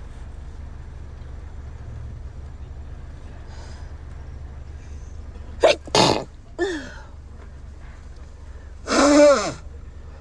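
A person sneezing: a quick cluster of sharp sneezes about six seconds in, then a longer, voiced sneeze with a falling pitch near the end, over a low steady hum.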